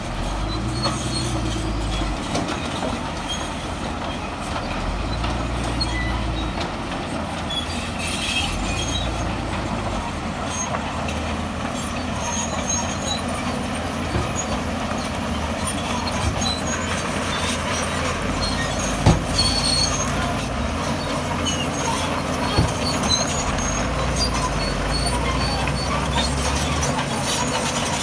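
Crawler bulldozer's diesel engine running under load, with its steel tracks squealing and clanking as it pushes stone. The engine rises and falls in low swells, and there are two sharp knocks about two-thirds of the way through.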